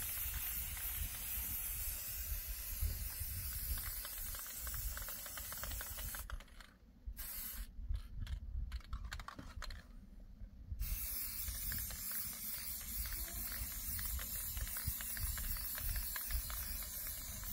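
Paintbrush scrubbing paint onto a rough hut wall: a scratchy hiss made of rapid light ticks that stops and starts several times in the middle, over a low, uneven wind rumble on the microphone.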